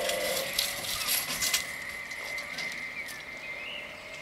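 Level-crossing barrier drive humming as the booms finish rising, cutting off about half a second in, followed by a run of sharp clicks and knocks over the next second. After that comes a quieter outdoor background with a thin steady high whine and a few faint chirps.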